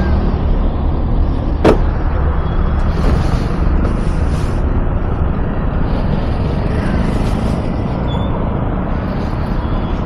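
Scooter ride heard through a helmet-mounted camera: the scooter's small engine running under steady wind rumble on the microphone, with a single sharp click near two seconds in.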